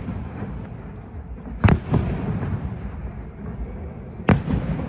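Aerial fireworks shells bursting: two loud bangs about two and a half seconds apart, each followed by a short rumbling echo and a few smaller crackles.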